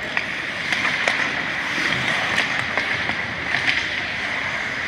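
Ice hockey play on a rink: a steady hiss of skates and rink noise, with sharp clacks of sticks and puck several times.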